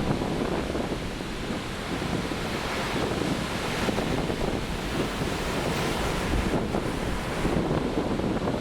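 Large winter storm waves breaking and rolling in on the shore: a steady, heavy rush of surf, with wind buffeting the microphone.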